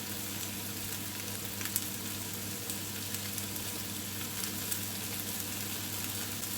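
Onions, chilies, bell peppers and tomatoes frying in coconut oil in a pan, giving a steady sizzle with a few faint clicks.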